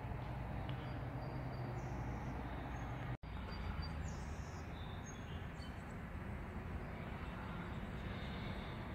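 Outdoor background noise: a steady low hum with birds chirping now and then. The sound cuts out for an instant about three seconds in.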